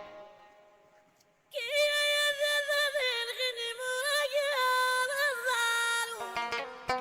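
Background music: plucked-string notes die away into a short gap. About a second and a half in, a slow melody of long held, wavering notes begins. Quick plucked strings come back near the end.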